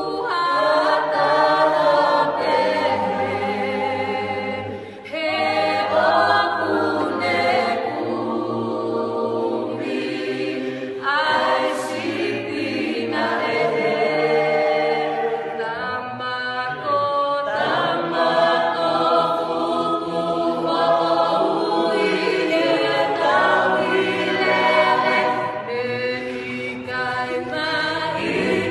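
A small mixed group of men's and women's voices singing a cappella in harmony, with no instruments.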